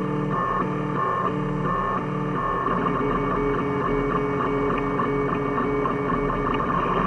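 3D printer stepper motors whining in short steady tones that switch pitch every fraction of a second as the print head moves back and forth, over a steady low hum.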